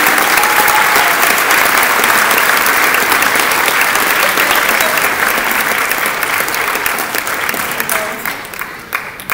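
Audience applauding, the clapping thinning over the last couple of seconds to a few scattered claps.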